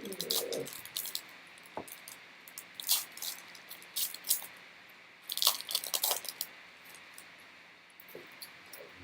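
Trading cards being handled by hand: bursts of crisp rustling and clicking, loudest about three seconds and five to six seconds in.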